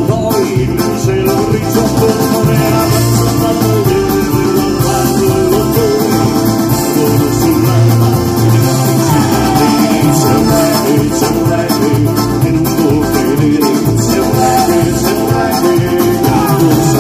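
Live folk band playing an instrumental passage on acoustic guitar and accordion.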